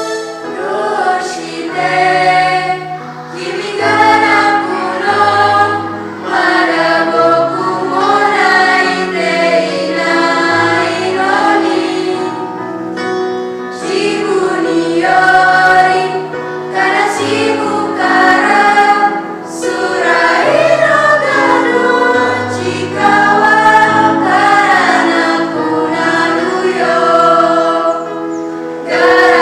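Vocal group singing a song in unison, all voices on one melody line rather than split into harmony parts, in phrases with brief breaks between them.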